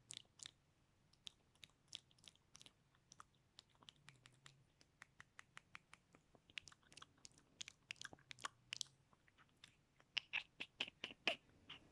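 Close-miked ASMR mouth sounds: faint wet tongue and lip clicks and smacks at an irregular pace, growing thicker and louder near the end.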